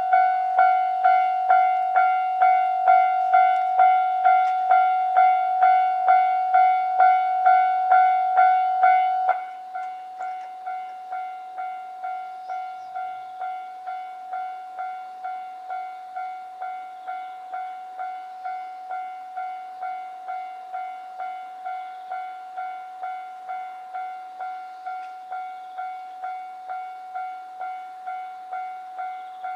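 Japanese level-crossing warning bell ringing a steady electronic ding at about three strikes every two seconds, signalling an approaching train. About nine seconds in it drops to a noticeably lower volume and rings on.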